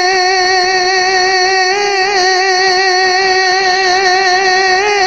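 A steady drone held on one note, with many overtones and a slight wavering in pitch, backing the sung devotional verses in the gap between lines.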